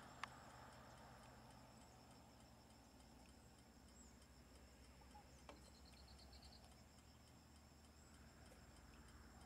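Near silence: faint outdoor ambience with a steady high insect drone and faint regular ticking, a couple of faint clicks, and a short rapid trill about six seconds in.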